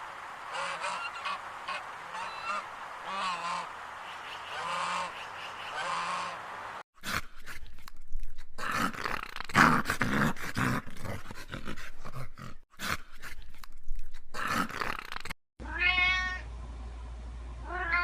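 A domestic cat meowing twice near the end, each meow rising and then falling in pitch. Before that come a string of short, repeated calls from another animal and a choppy stretch broken by abrupt cuts between clips.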